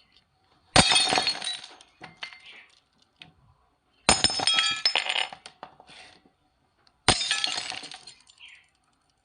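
Glass shattering three times, about three seconds apart. Each time there is a sharp crash followed by a second or so of tinkling, ringing shards that die away.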